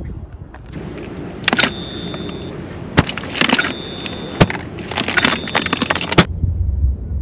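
A short ringing chime, a catch-counter sound effect, plays three times about two seconds apart. Under it are clattering and rustling from a plastic cooler box as fish are dropped in, and a knock as the lid shuts near the end.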